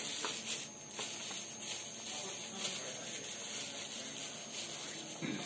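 Rustling and crinkling of plastic packaging and papers being handled, a soft, irregular crackle.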